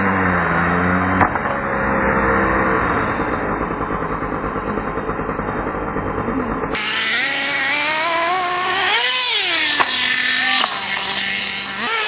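Small two-stroke glow engines of nitro RC cars running and revving, pitch rising and falling, with a sharp knock about a second in and another near the end. The sound changes abruptly about two-thirds of the way through, where a second clip begins.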